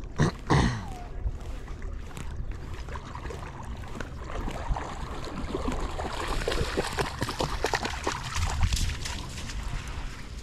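A dog swimming, then splashing through shallow river water as it comes ashore, the splashing building into a dense run from about four seconds in to near the end. A short loud sound with a falling pitch about half a second in.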